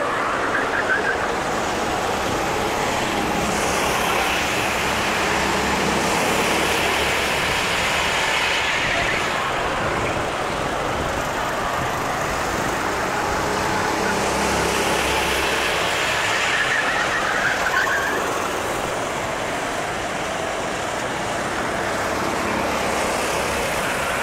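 Sodi RT8 rental karts' four-stroke engines buzzing around the track, the sound swelling and fading as karts pass by, three times, over a steady rush of background noise.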